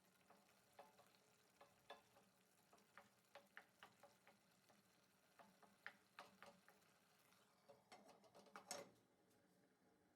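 Faint, irregular clicks and taps of a spatula stirring a frying vegetable mixture in a pan, with a few slightly louder taps near the end.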